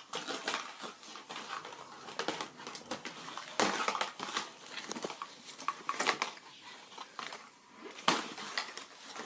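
Crackling and crinkling of a doll's cardboard box and plastic packaging being handled, in irregular sharp crackles with louder ones about four, six and eight seconds in.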